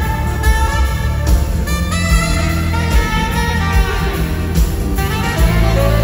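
Live band playing an instrumental break, led by a saxophone solo of flowing, sliding melodic lines over the rhythm section.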